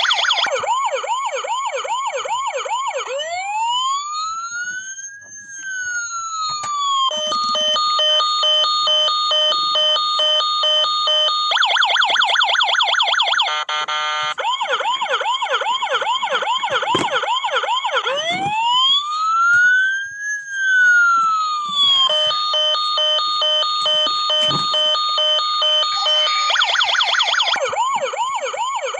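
Toy fire truck's electronic siren cycling through its patterns: a fast yelp, then a slow wail that rises and falls, then a steady stepped hi-lo tone. The sequence runs through twice.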